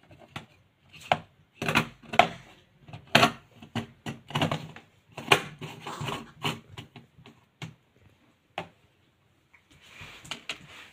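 Irregular clicks and knocks of plastic electrical fittings being handled: a ceiling rose with its lamp holder and bulb, set down on a wooden board.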